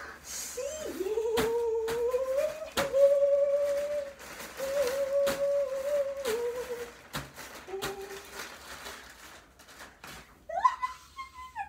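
A woman humming a drawn-out, wavering tune, with scattered sharp clicks as items are handled.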